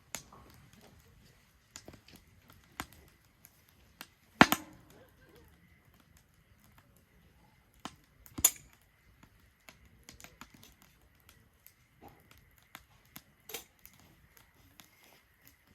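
Wood fire crackling in a Solo Stove Ranger fire pit, with scattered sharp pops; the two loudest come about four and a half and eight and a half seconds in.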